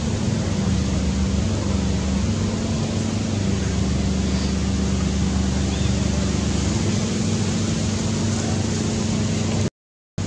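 A steady low mechanical hum over a constant hiss, cutting out for a moment near the end.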